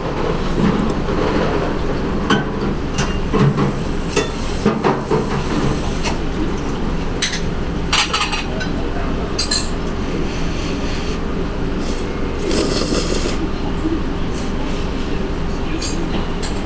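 Steady low rumble and hum of a busy underground eatery, with scattered sharp clinks of chopsticks and tableware against a metal plate.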